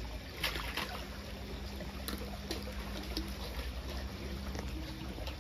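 Water trickling steadily over a low steady hum, with a few sharp clicks and knocks about half a second in and again around two to three seconds in, as a caught pomfret is handled over a landing net.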